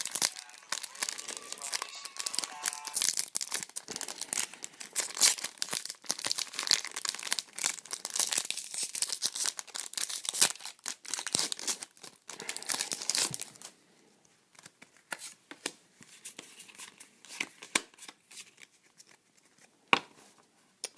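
Foil booster pack wrappers being torn open and crinkled, a dense rustling for roughly the first thirteen seconds, then only scattered lighter rustles and taps.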